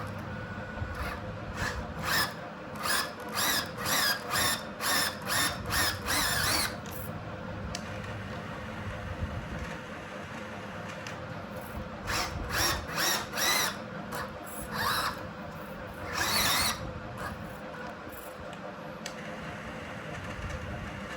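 Small electric motor of an RC truck whining in short throttle bursts, about two a second, in two runs with single longer bursts after, over a steady background hum.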